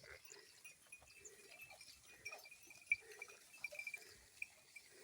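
Herd of goats moving: faint calls, scattered small clicks and clinks, one sharper click about three seconds in, over a steady high chirping in the background.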